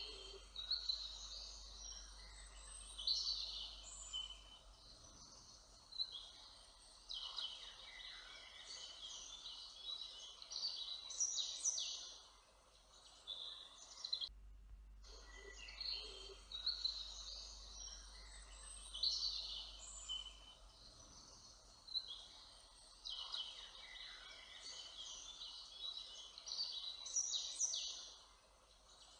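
Woodland birdsong: several songbirds singing at once in many short, overlapping chirps and trills. About halfway through there is a brief dropout and the same stretch of song plays again, as a loop.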